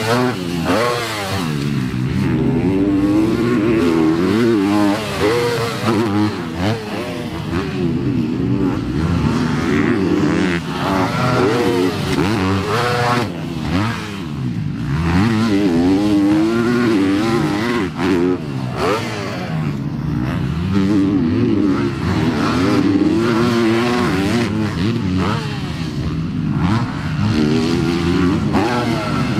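Yamaha motocross bikes ridden hard, their engines revving up and dropping off over and over with throttle and gear changes, the pitch rising and falling every second or two.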